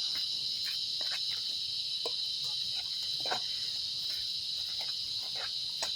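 Steady high-pitched insect chorus, with a few faint ticks and clicks scattered through it.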